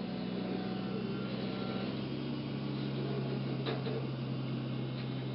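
Steady low hum of an idling vehicle engine, with a faint click or two near the end.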